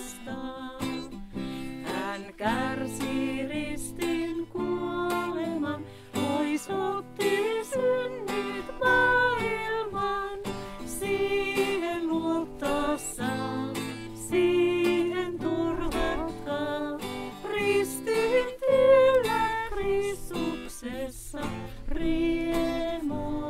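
A small group of voices singing a hymn, accompanied by a strummed acoustic guitar.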